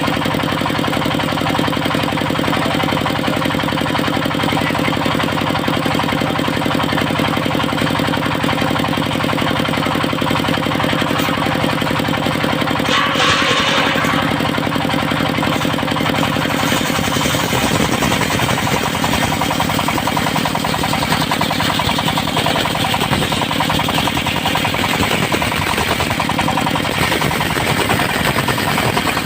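Engine of a mobile circular sawmill running steadily, with a brief higher-pitched burst about thirteen seconds in. From about halfway the sound becomes rougher and noisier.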